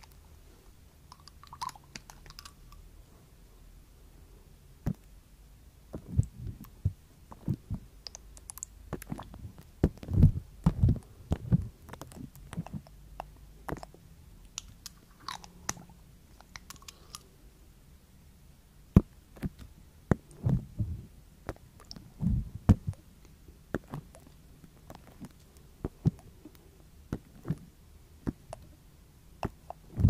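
Close-miked handling of a small glass dropper bottle: irregular clicks, taps and low thumps as the cap is worked and the glass dropper is drawn out. The sounds come in clusters, busiest through the middle, with quiet gaps between.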